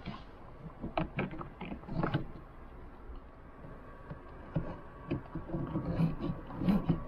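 Handling noises of a round plastic LED lantern being hung by its cord inside a car: clusters of clicks, taps and light knocks about a second in and again over the last few seconds, over a steady faint background noise.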